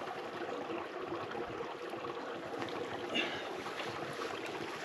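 Small moorland stream trickling steadily over grass and stones, a light, even running-water sound.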